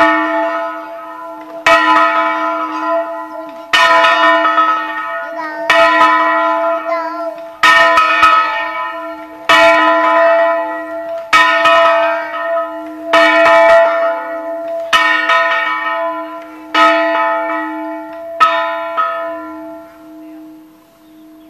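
Church tower bell being rung, about ten strokes roughly every two seconds, each stroke ringing on into the next. The strokes stop a couple of seconds before the end and the ringing dies away.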